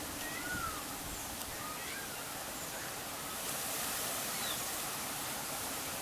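Steady hiss of rain falling on foliage, swelling a little about three and a half seconds in, with a few short, faint bird chirps scattered through it.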